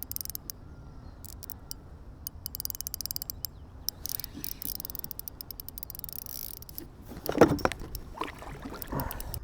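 Fishing reel being wound in while playing a hooked fish: a quick run of sharp mechanical clicks that thins out about six seconds in. A short vocal exclamation follows.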